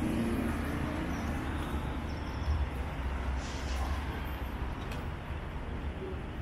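Street ambience on a busy city avenue: a steady, low traffic rumble.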